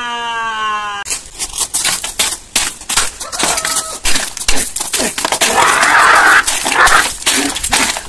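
A falling pitched tone for about the first second, then a fast, irregular run of loud knocks, clatters and cracks: an electric fan's parts being struck and broken with an axe.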